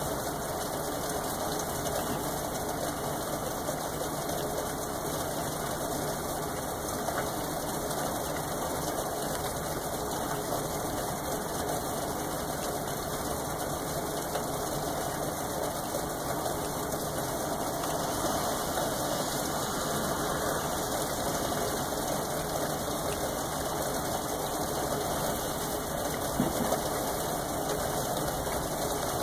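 Steady rain falling, an even unbroken wash of noise.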